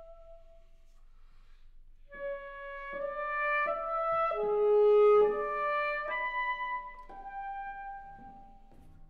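Alto saxophone playing a slow melody of held notes over plucked harp. A held note fades about a second in, and after a short pause the melody resumes, swelling to its loudest on a long low note about halfway through.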